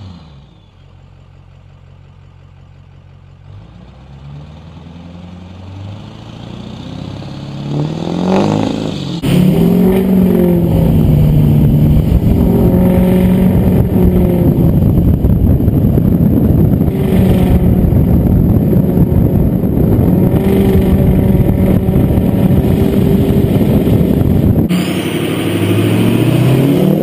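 Ford 6.0 Powerstroke V8 turbodiesel pickups: a low engine sound fading as a truck pulls away, then a long stretch of loud running under hard acceleration heard from a camera on the truck's side. Near the end, another truck passes close by, rising and then falling in pitch.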